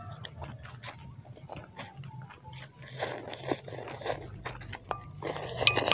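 Close-miked eating sounds: noodles from a bowl of bakso soup slurped and chewed, with many small wet mouth clicks. There are louder slurps about three seconds in and near the end, over a low steady hum.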